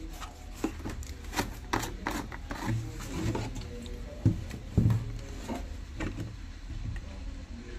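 Handling noise from the distilled-water bottle and its plastic cap on a wooden workbench: scattered light clicks and taps, with a sharper knock about four seconds in, over a low steady hum.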